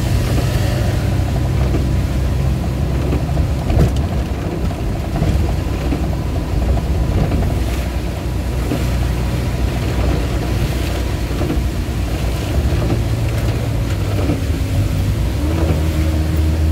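Cab interior of a Suzuki Carry 1000 on the move, its 1000 cc engine running steadily under a mix of rain and wet-road tyre noise. The engine note shifts near the end.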